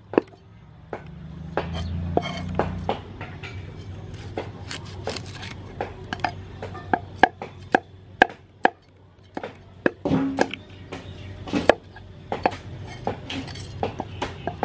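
Large kitchen knife scraping scales off a whole fish and knocking against a wooden chopping board, in sharp, irregular knocks one to three a second.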